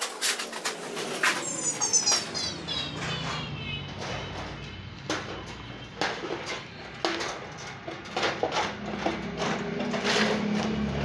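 Sheet steel being cut with large hand shears: a string of irregular sharp snips and clicks, with the metal sheet scraping and rattling as it is bent along the cut, and a short falling whine about two seconds in.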